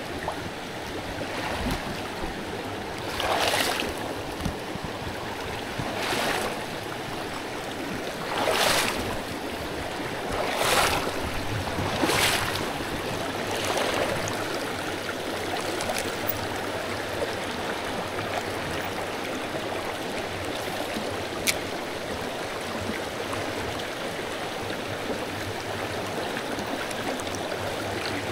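Shallow rocky creek rushing over stones, a steady water noise, with half a dozen brief swelling whooshes in the first half and a single sharp click about two-thirds of the way through.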